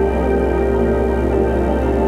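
Background music with slow, sustained chords held at a steady level.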